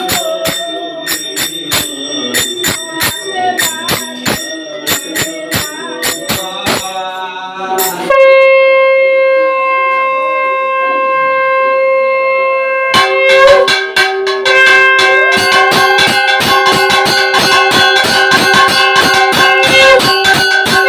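Brass hand bell rung in a steady rhythm during a Hindu evening aarti, then a conch shell (shankha) blown in one long steady note from about eight seconds in, for about five seconds. After it the bell rings again, faster, with the conch held under it.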